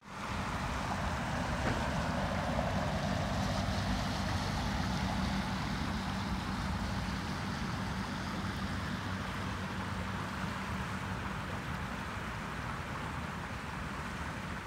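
Steady rushing of floodwater from an overflowing creek spreading across a yard.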